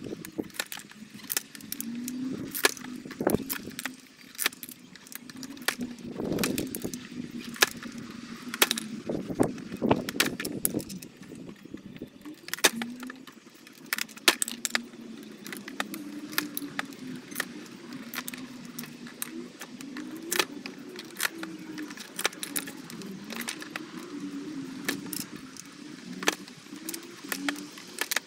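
Long-handled bypass loppers snipping hollow plant stems, with repeated sharp snaps as the blades close and the clatter of cut stem pieces and tools on the workbench.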